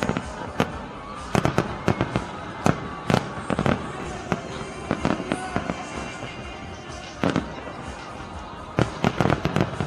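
Fireworks display: sharp bangs and crackling reports going off irregularly, several close together at times, with a dense run of bangs near the end.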